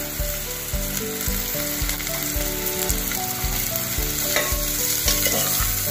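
Sliced onions, green chillies, ginger and garlic sizzling steadily in hot coconut oil in an aluminium pressure cooker, stirred with a steel spoon as they are sautéed toward brown.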